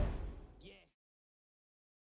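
Background music fading out in the first second, then dead silence.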